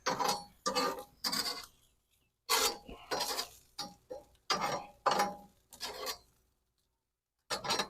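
Spatula scraping and sliding hamburger patties across a charcoal grill's cooking grate in a series of short, rasping strokes, with two brief pauses.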